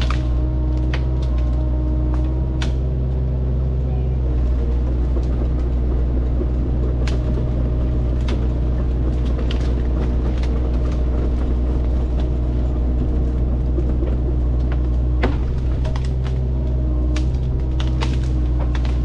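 Excavator's diesel engine running steadily, with scattered sharp clicks and knocks over it.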